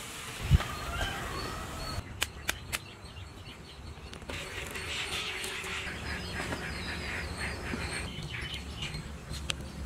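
Birds chirping in the background, densest in the second half. There is a low thump about half a second in and a few sharp clicks between two and three seconds.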